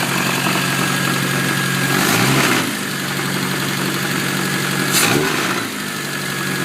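Supercharged 1275 A-series engine of a classic Mini idling, blipped briefly twice, with the loud knocking that the owner wonders could be the Eaton supercharger's bearing.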